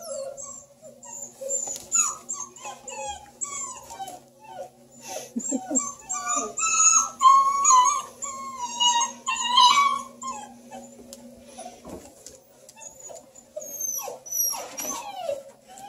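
Several hound puppies whining and yelping as they play-fight over a blanket: many short, high, falling cries overlapping one another, with one long drawn-out whine in the middle.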